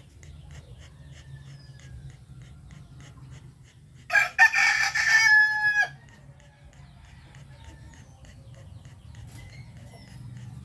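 A rooster crows once, about four seconds in: a loud call of roughly two seconds that ends on a held, wavering note.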